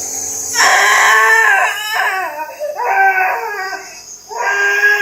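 A young child crying in long, wavering wails, three cries with short breaks between, over a steady hiss.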